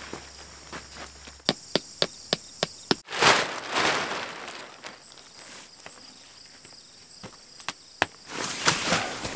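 A blue plastic tarp rustling and crinkling as it is thrown over a small tent, preceded in the first few seconds by a quick run of about six sharp taps. Insects shrill steadily in the background.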